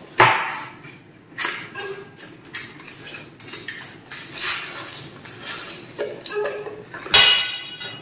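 Small metal tool parts and their packaging being handled: scattered clinks, knocks and rustles. The loudest is a ringing clink about seven seconds in.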